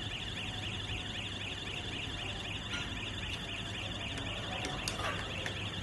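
Fire alarm sounder in activated alarm mode, sounding a fast, high-pitched repeating warble, with a steady low hum underneath.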